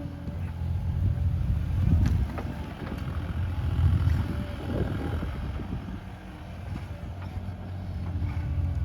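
Bobcat E37 compact excavator's diesel engine running under working load, rising and falling, with a few sharp knocks and scrapes about two to five seconds in.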